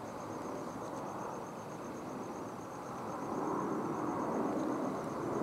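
A cricket chirping in a fast, even pulse, over low background noise that grows louder about three seconds in.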